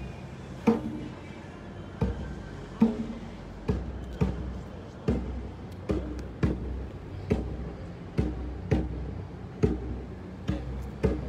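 Hand drum beaten in a slow, uneven beat, about one to two strokes a second, each stroke with a short, low ring.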